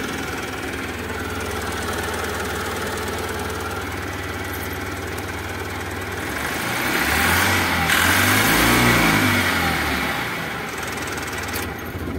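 Mahindra Supro Maximo's engine running steadily at idle, then revved up and let back down about halfway through. It is running again after a backed-out cylinder-2 injector connector, which had caused the no-start and an injector open-circuit code, was pushed back into place.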